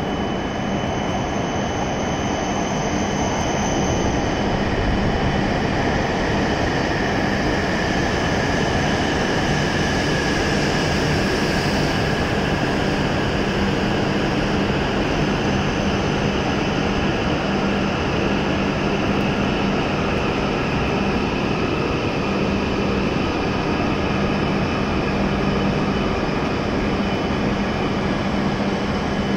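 E7 series Shinkansen train pulling slowly into the station alongside the platform: a steady rumble of wheels and traction motors with high, steady whines over it.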